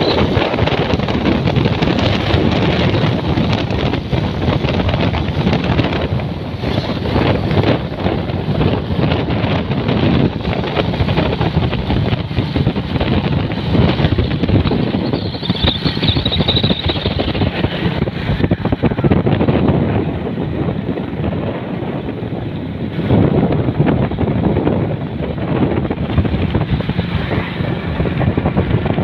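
Wind buffeting the microphone of a moving motorcycle, mixed with the bike's running engine and road rumble.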